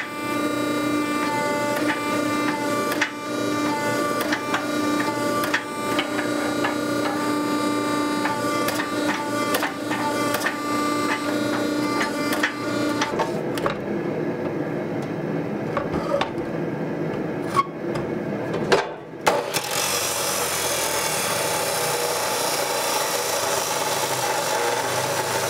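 Hydraulic forging press running with a steady whine of several tones and occasional clicks as it squeezes a red-hot truck leaf spring. About two-thirds of the way through, this gives way to the steady hissing grind of an abrasive wheel on steel.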